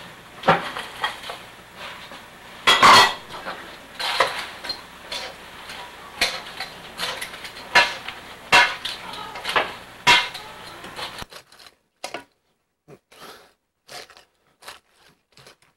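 Metal tongs clinking and scraping against a stainless-steel mixing bowl as romaine and croutons are tossed, with a louder clatter about three seconds in. After about eleven seconds the clinks become fainter and sparser.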